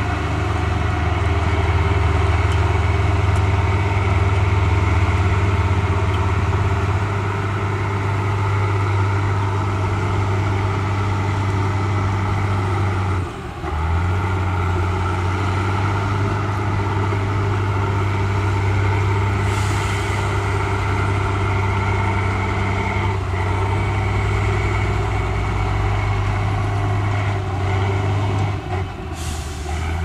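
Heavy diesel engines of crawler bulldozers running steadily under load while pushing dirt, with a short hiss about two-thirds of the way through.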